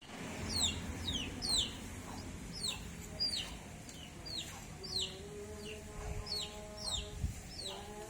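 Birds chirping: a steady run of short, high, falling chirps, about one or two a second, over a low background rumble.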